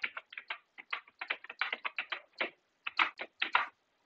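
Typing on a computer keyboard: quick, uneven keystrokes, several a second, with a few harder taps about three seconds in.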